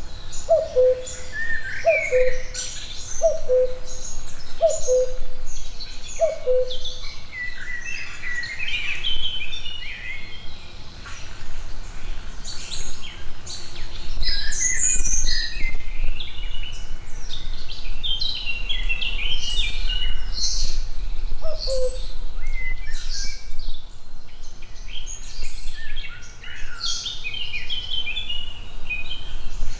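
Several songbirds singing overlapping high, quick phrases, with a low two-note call, the second note lower, repeated about once a second for the first seven seconds and once more later.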